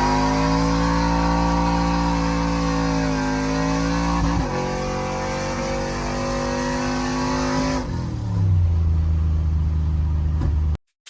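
Cammed V8 pickup engine held at raised revs, then dropping back to a lower idle about eight seconds in, before cutting off abruptly near the end.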